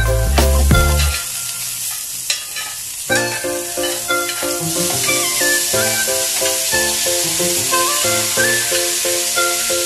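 Butter sizzling on a hot cast-iron sizzling plate while a spoon spreads it, the sizzle growing louder about halfway through, over background music.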